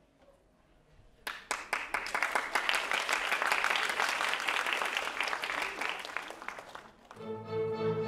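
Audience applause, starting about a second in and dying away shortly before the end, then orchestral music with strings begins.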